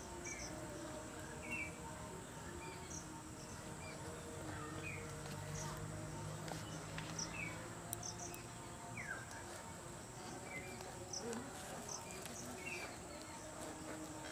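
Faint chirping of small birds, short calls repeating every second or two, over a steady thin high hiss. A low hum rises and fades around the middle.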